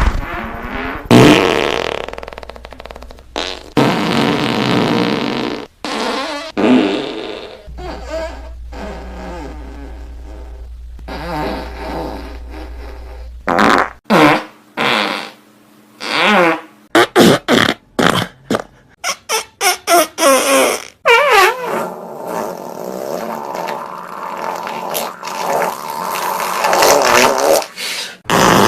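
A string of fart sound effects one after another, with wavering pitch: several long drawn-out ones, then a quick run of short, sharp ones about halfway through, then long ones again.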